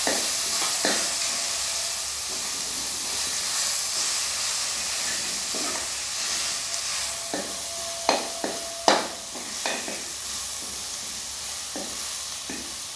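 Boiled mushrooms frying in onion and tomato masala in a black kadai, a steady sizzle, while a metal ladle stirs them, scraping and knocking against the pan, with a cluster of sharp knocks a little past the middle.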